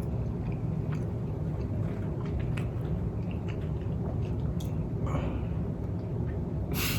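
Person chewing a bite of matcha blondie: small mouth clicks over a steady low hum, with a short hiss near the end.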